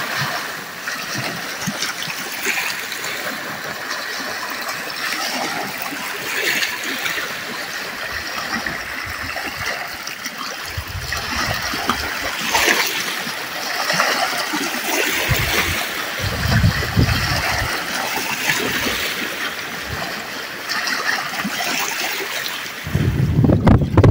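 Water splashing and trickling in small, uneven surges, with a few short low rumbles.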